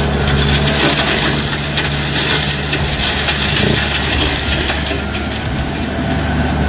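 Diesel engine of a rubber-tracked forestry tractor running steadily under load, with a continuous grinding, crushing noise of wood being worked.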